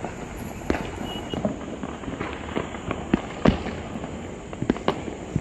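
Firecrackers going off in quick, irregular succession: a dozen or so sharp bangs, the loudest about three and a half seconds in.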